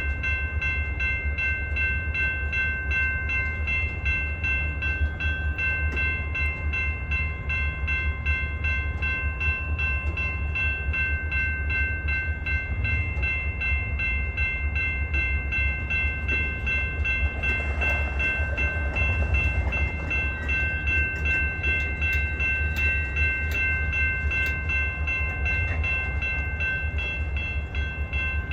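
Diesel freight locomotive running, a steady low rumble with a high whine held throughout.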